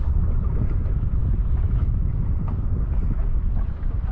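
Wind buffeting an outdoor camera microphone: a steady low rumble with no clear pitch.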